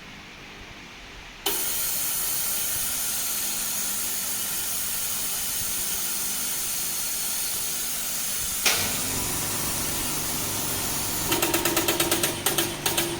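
Vacuum leak tester switching on with a sudden, steady hiss of air as it draws vacuum. A sharp click comes partway through, and a fast run of mechanical clicking starts near the end.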